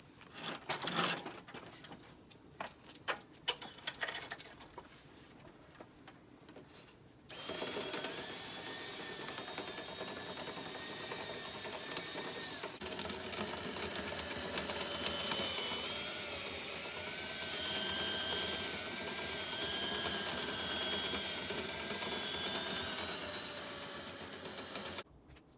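A few scattered clicks and knocks of handling, then about seven seconds in a drill starts and runs steadily for some eighteen seconds, its motor pitch wavering with trigger and load as it spins Linteater rods and brush through the dryer vent pipe to clear lint buildup; it stops abruptly near the end.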